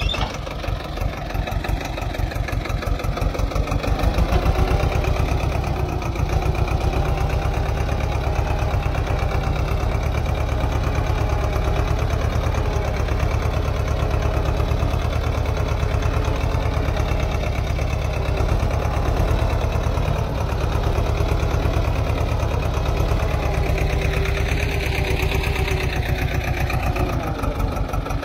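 Swaraj 724 XM Orchard tractor's two-cylinder diesel engine running steadily under load, pulling a single-bottom mouldboard plough through the soil.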